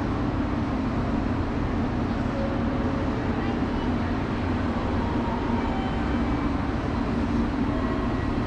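Station platform ambience: a steady low hum from a stationary JR Kyushu Sonic limited express train and the covered station around it, with a faint murmur of voices.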